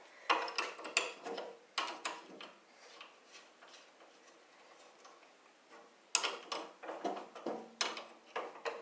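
Hand ratchet wrench with a socket clicking as a bolt is turned, in two short runs of quick clicks with a quieter pause in the middle.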